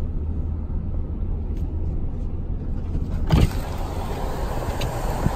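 Car road noise heard from inside the cabin: a steady low rumble. About three seconds in, a sharp thump, after which a brighter hiss joins the rumble.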